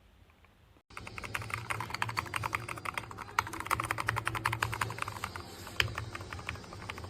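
Fast typing on a mechanical keyboard fitted with PBT keycaps in XDA profile: a dense run of keystroke clicks that starts abruptly about a second in.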